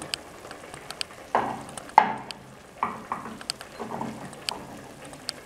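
Soaked dried chestnuts tipped from a bowl into a stainless-steel pot of simmering stew, with a few soft knocks and scattered clicks as they drop in and the bowl is handled, over a faint sizzling simmer.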